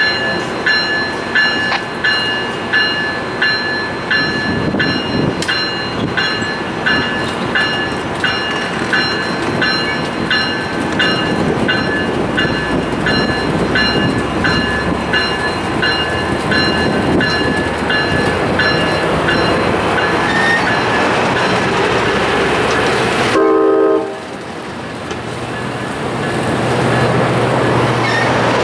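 Amtrak California bilevel passenger cars rolling past slowly with a steady rumble and wheel clatter. A bell rings in an even beat, a little under twice a second, and fades out about twenty seconds in. The sound breaks off briefly near the end, then the rumble builds again.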